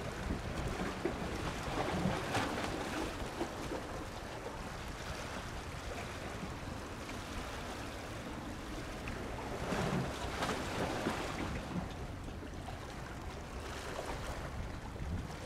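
Steady rumbling hiss of wind and sea surf, swelling twice, with no clear rotor beat from the distant helicopter.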